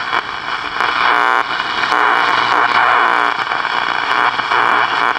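Loud steady static and hiss from a 1960s General Electric World Monitor multiband transistor radio as its tuning knob is turned across the shortwave band between stations.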